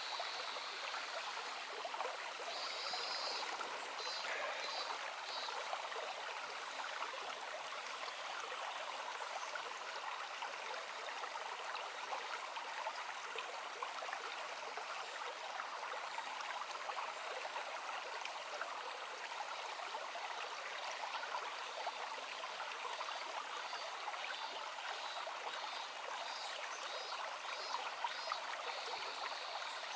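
Shallow stream babbling and trickling steadily. Faint, short, high repeated chirps come through a few seconds in and again near the end.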